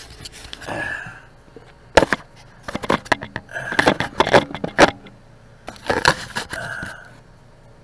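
Handling noise from a small camera being moved and set down on a kitchen counter: a run of sharp knocks, clicks and scrapes, the loudest knock about two seconds in, with further clusters of knocks until near the end.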